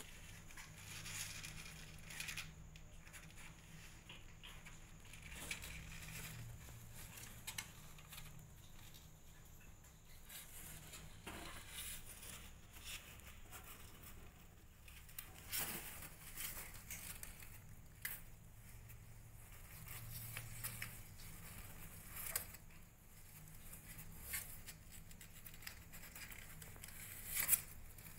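Faint, irregular scratching and rustling of kittens' claws and paws on a cardboard box floor as they shuffle and climb over one another, with a few sharper scrapes near the end.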